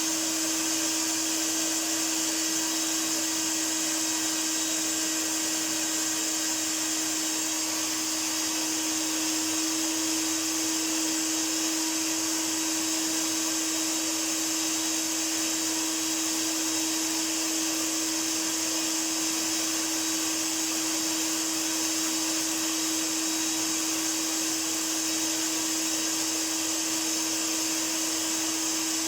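1982 Hoover Powervac S4266 wet-and-dry tub vacuum cleaner running loudly and steadily: a constant motor tone over the rush of air.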